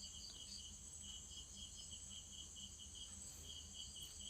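Crickets chirping faintly in a steady run of about five chirps a second, over a continuous high insect drone and a low hum.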